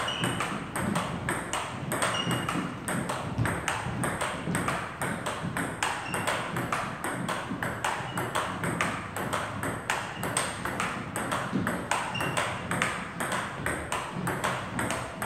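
Table tennis ball being hit back and forth in a fast, continuous rally: rapid, evenly paced clicks of the ball on rubber rackets and on the table, several a second, as two players alternate strokes in a doubles footwork drill.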